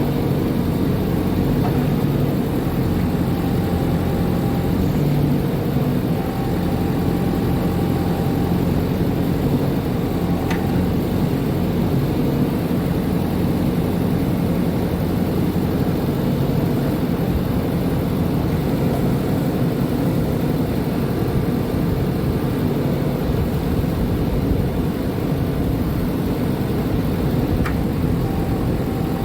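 Backhoe loader's diesel engine running steadily at a constant speed, with two faint short ticks, one about ten seconds in and one near the end.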